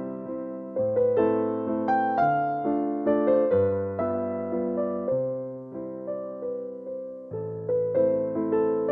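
Background music on electric piano: gentle, slow chords and a simple melody, each note struck and then fading.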